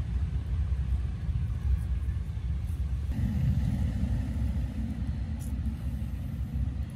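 Steady low rumble without clear events, whose tone shifts slightly about three seconds in, with a few faint ticks.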